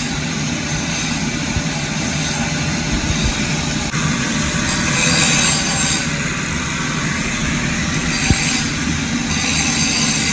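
Angle grinder grinding steel, running steadily under load, with one short sharp knock about eight seconds in.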